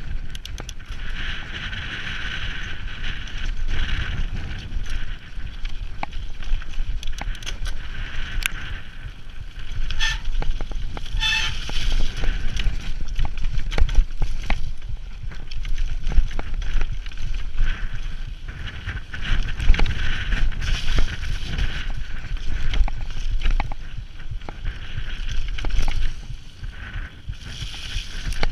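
Mountain bike riding fast down a rough dirt trail: the tyres rumble and the bike rattles and knocks over the bumps, with wind buffeting the microphone. A brief high-pitched squeal about ten seconds in.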